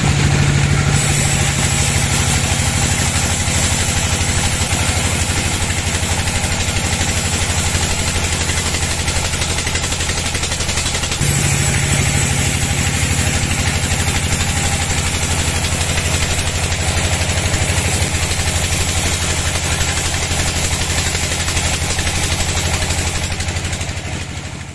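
Sawmill band saw running through a log: a steady machine drone with a low hum under the hiss of the blade cutting wood. The low hum shifts slightly about eleven seconds in, and the sound dies away at the very end.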